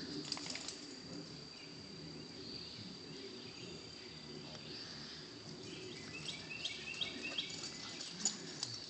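Outdoor ambience: a steady high-pitched insect drone over a low background rumble, with a bird giving a run of about five short chirps near the end.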